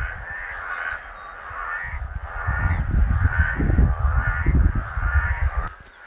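Breeding chorus of green tree frogs (Hyla): many males giving short, pulsed, honking notes that overlap, several a second. From about two seconds in, a heavy low rumble on the microphone is the loudest thing, and it stops abruptly near the end.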